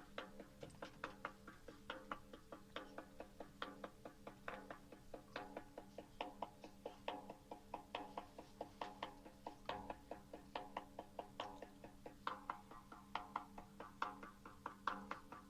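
Shaman's frame drum (buben) beaten in a steady, quiet rhythm, about three to four strikes a second, over a steady low hum.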